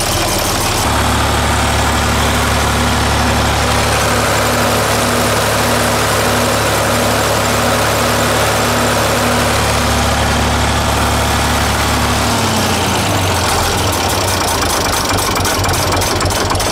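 Case 931 tractor's six-cylinder diesel engine running steadily at a fast idle, its clogged oil-bath air cleaner freshly cleaned and its oil changed to 15W-40, which the owner takes to be why it sounds healthier and quieter. About twelve seconds in, its speed drops and the pitch falls.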